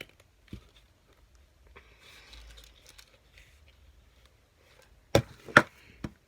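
Small objects handled on a desk: faint rustling, then two sharp clicks or taps close together about five seconds in and a lighter one just after.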